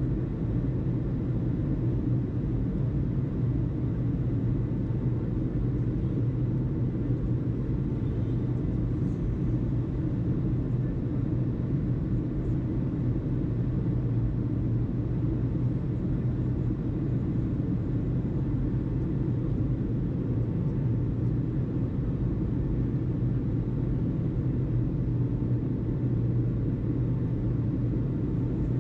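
Steady, unchanging low engine rumble, strongest in the bass.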